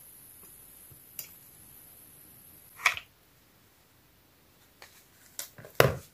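Plastic handling clicks as a phone charger and its USB cable are plugged in: one loud click about three seconds in, then a cluster of clicks and knocks near the end. A faint high steady tone stops at the loud click.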